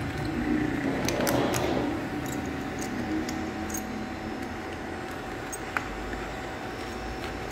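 Leather tool roll on a motorcycle fork being unbuckled by hand: metal buckle clinks and leather strap rustling, with a cluster of sharp clicks about a second in and another single click near the end. A faint steady hum runs underneath.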